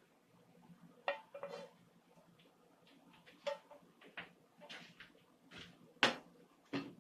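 Metal kitchen utensils clinking and knocking against dishes: about eight separate knocks, a few with a short ring, the loudest about six seconds in.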